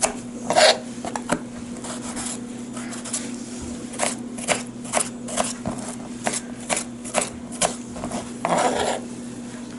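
A small kitchen knife chopping strawberries on a plastic cutting board: a string of short, irregular knocks as the blade goes through the fruit and taps the board. A longer noise comes about a second before the end.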